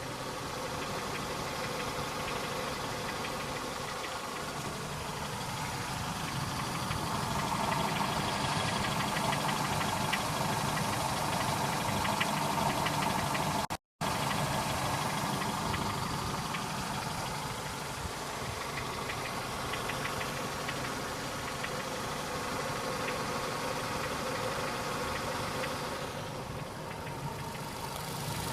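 Engine running steadily at idle with a fast, even knocking or ticking over it, an unexplained knock in the engine. The sound cuts out completely for an instant about halfway through.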